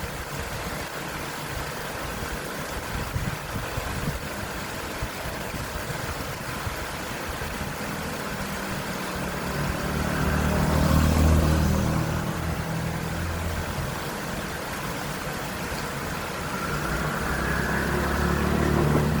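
Steady rush of a small waterfall, with a motorcycle passing that swells and fades about halfway through, and another coming closer near the end.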